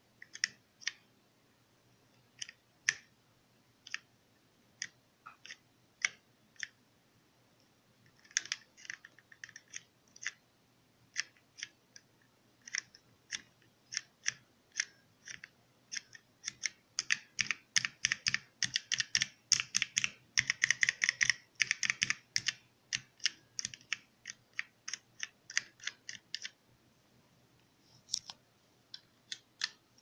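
Keys of a 16-key calculator-style matrix keypad being pressed and released with sharp clicks. The clicks start about a second apart, become a fast, dense run of key presses in the middle, then thin out to a few near the end.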